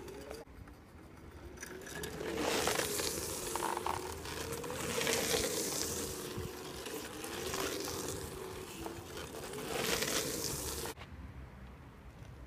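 Electric hoverboard hub motors on a hoverkart whining, the pitch rising and falling again and again as it speeds up and slows, with three louder surges of hiss. The sound cuts off abruptly near the end.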